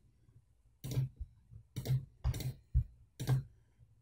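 Computer mouse clicks and a Ctrl key pressed, about five short clicks, some in quick pairs, spread over a few seconds.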